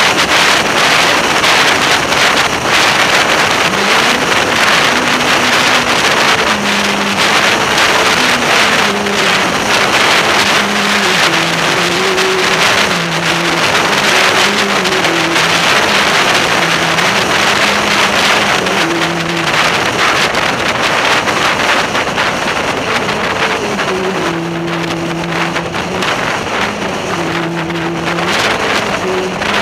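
Motorcycle riding at road speed: loud wind rushing over the microphone over a steady engine note that shifts up and down in pitch several times as the speed changes.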